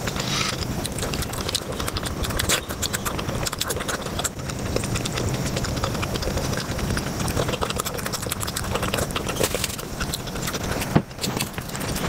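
Close-miked eating sounds played back fast: a dense run of wet chewing and mouth-smacking clicks from soft sweets, with one sharper click near the end.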